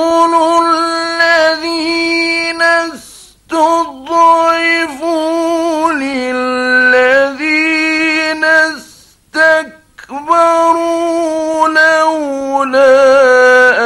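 A man's voice reciting the Quran in the melodic Egyptian mujawwad style. He draws vowels out into long, ornamented held notes across several phrases, with short pauses for breath between them.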